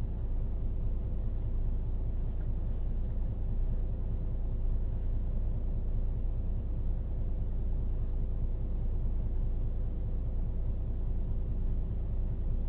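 Steady low rumble with a faint constant hum above it, unchanging throughout.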